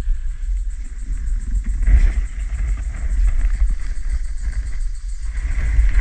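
Heavy low rumbling on the microphone, with scattered rustles and small knocks as a hoop net is hauled up out of a creek by its cord.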